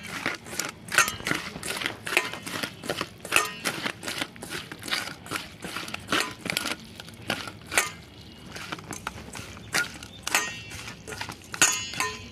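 Hands working small kachki fish (river sprats) with salt in a bowl: an irregular run of many short clicks and rustles as the wet fish are squeezed and turned over.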